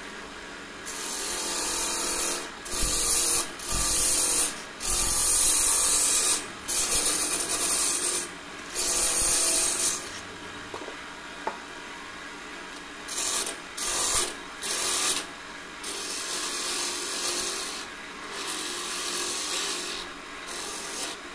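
Wood lathe spinning a hard mastic-wood goblet blank while a hand-held turning tool cuts the outside of the stem. Cutting hiss comes in repeated passes of a second or two each, loudest in the first half, over the steady hum of the lathe.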